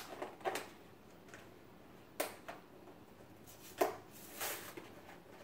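Toy action-figure packaging of plastic and card being pulled and worked at by hand: a few sharp, scattered clicks and crinkles, with a short rustle near the end.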